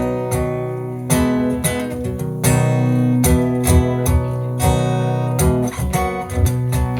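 Live music: strummed acoustic guitar chords in a steady rhythm, the start of a song's instrumental intro.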